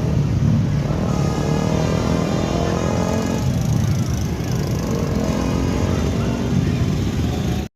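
Heavy diesel bus engine running in passing traffic, a steady low drone, with a faint rising tone over the first three seconds.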